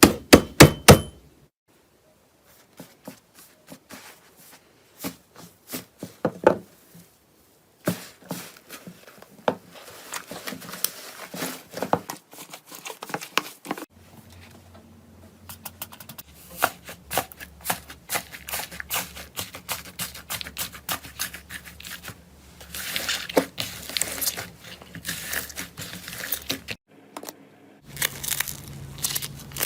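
Slime being squeezed and pressed by hand, giving crisp crackling clicks and crinkling, sparse in places and dense in others. The sound changes abruptly several times as one clip gives way to the next.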